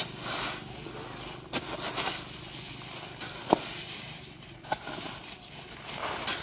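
A long-handled shovel scraping and swishing through a heap of granular fertilizer on a plastic tarp, in repeated strokes, with a couple of short clicks from the blade.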